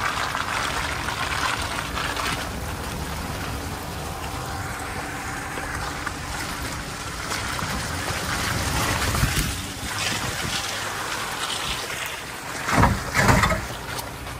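Off-road Jeep engine running at low speed under a steady wash of rain and water noise from the wet, muddy trail, with a couple of heavy low thumps near the end.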